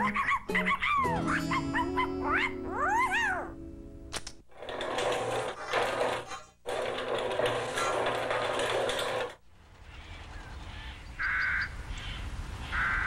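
A cartoon small dog's excited yaps and whines, sliding up and down in pitch, over music. After a cut a few seconds in, busy music plays, then quieter music with two short bright notes near the end.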